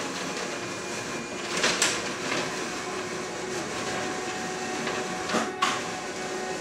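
Slatted roller shutter over a serving hatch rattling steadily as it is pulled down, with a few sharp clatters along the way.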